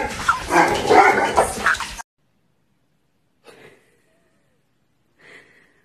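A person's raised, excited voice without clear words, cut off abruptly about two seconds in. Then near silence, broken by two faint, brief sounds.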